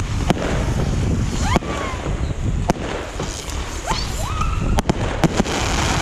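Fireworks going off: several sharp cracks and bangs, with whistling glides that rise in pitch and then bend down, over a steady low rumble.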